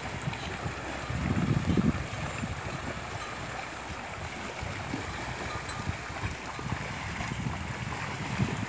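A herd of water buffalo wading and splashing through shallow water, with wind buffeting the microphone in low gusts, the strongest a little over a second in.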